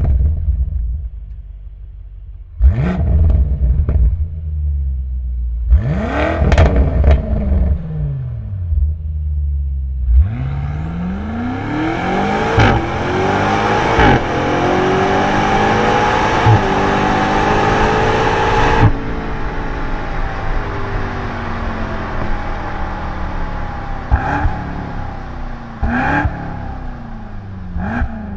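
A 2018 BMW M5's twin-turbo V8 exhaust, idling and blipped in short revs, then revved hard in a long stretch of repeated climbs and drops in pitch, before settling lower with a few short sharp blips about two seconds apart near the end.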